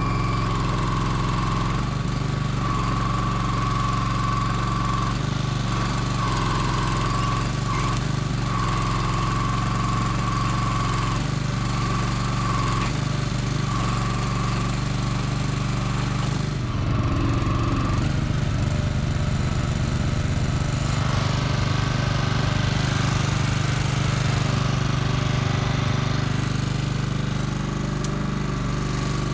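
Small gas engine of a log loader's hydraulic power pack running steadily while the crane swings and lifts logs, with a high hydraulic whine coming and going as the controls are worked. The engine's note changes a little past halfway.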